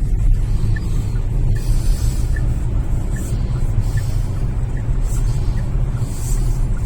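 Chery Tiggo 7 Pro Max cabin noise while driving: a steady low road rumble, with a faint short tick repeating about once every 0.8 s.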